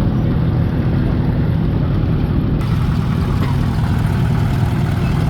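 Antique farm tractor engine running steadily at low speed, a deep continuous rumble.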